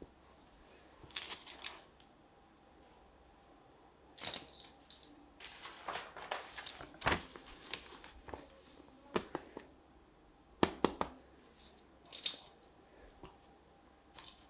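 Scattered light clicks, taps and short rustles from board game pieces and the game board being handled by hand, busiest in the middle.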